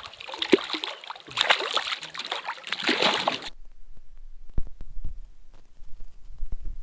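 Hooked lake trout thrashing and splashing at the surface beside a canoe. About three and a half seconds in, the sound turns dull and muffled, heard underwater, with a few low knocks.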